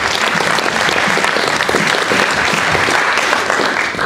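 Audience applauding, a dense steady clapping that starts to die away at the very end.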